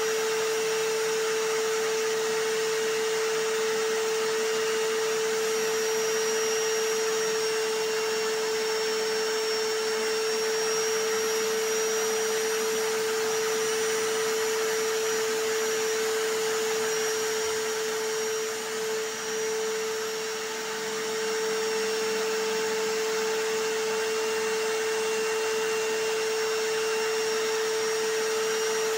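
Vacuum cleaner and hammer drill running together as a continuous steady noise with a strong, even motor hum, dipping slightly for a moment about two-thirds of the way through.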